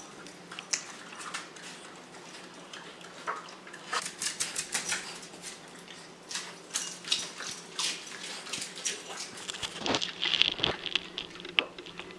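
A dog eating from a bowl: a rapid, irregular run of licking and chewing clicks, thicker in the second half.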